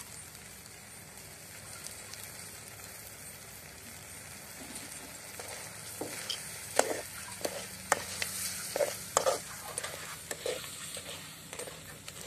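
Crab masala frying in a metal kadai over a wood fire, sizzling steadily. From about six seconds in, a metal ladle stirs it, with repeated sharp clinks and scrapes against the pan.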